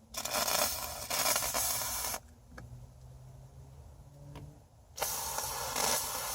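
Aerosol can of contact cement spraying through an 18-gauge hypodermic needle in two short blasts: a hiss of about two seconds, then another of about a second and a half near the end.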